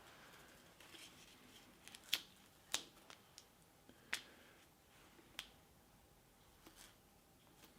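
Near-quiet hand work with about five faint, sharp clicks, spaced a second or so apart, from handling Teflon tape and a machine-cover gasket.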